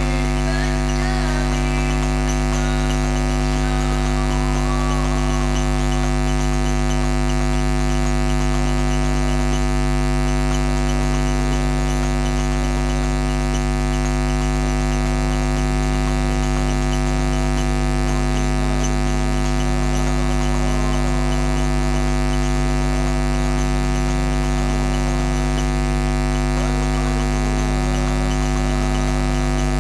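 Loud, steady electrical hum and buzz on the mixer feed of a stage sound system, made of a low mains hum with a ladder of fixed tones above it. Faint wavering voices come through underneath, near the start and again in the second half.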